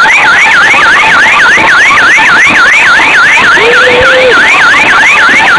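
Electronic siren sounding a fast, steady up-and-down sweep, about four cycles a second, over people's voices, with one drawn-out shout about four seconds in.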